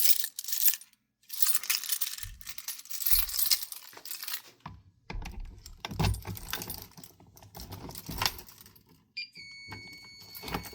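Keys jangling and metal parts clicking and rattling as a fire alarm pull station is reset by hand. About nine seconds in, a steady high electronic beep starts and holds.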